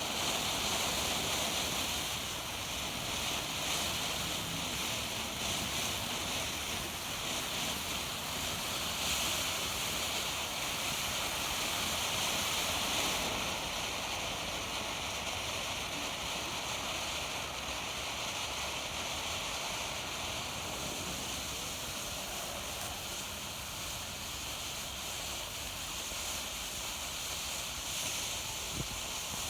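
Consumer firework fountain (Winda Silent Mode) burning, a steady hiss of spraying sparks that eases off a little about halfway through.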